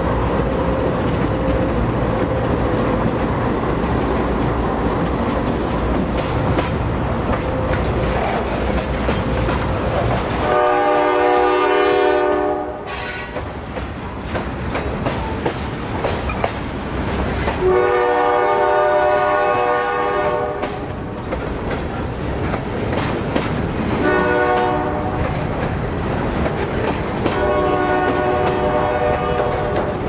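GE C40-8 diesel freight locomotives running under power, their 16-cylinder engines a steady rumble. About a third of the way in, the locomotive air horn starts sounding the grade-crossing signal: two long blasts, a short one and a long one.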